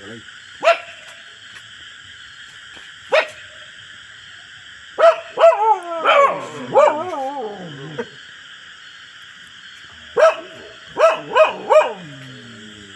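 A dog barking: single barks, then a run of yelping barks that slide down in pitch in the middle, and a quick string of four barks near the end.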